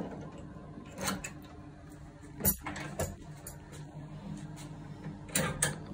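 Clicks and knocks of hose fittings being handled on a keg mash tun during a hose changeover: a sharp knock about two and a half seconds in and two more close together near the end, over a low steady hum.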